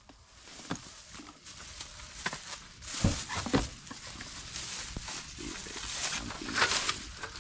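Plastic bags rustling and crinkling as they are handled, with irregular light knocks and taps. It gets louder about three seconds in and again near the end.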